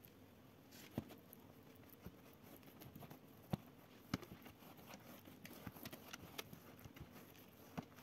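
A silicone pastry brush dabbing a glaze over the crust of a freshly baked loaf in a metal loaf tin: faint brushing with scattered sharp taps, the loudest about a second in and twice around three and a half to four seconds in.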